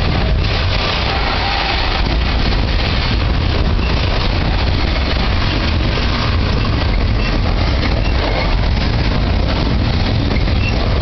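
Coal hopper cars of a freight train rolling past close by: a steady, loud rumble of steel wheels on the rails.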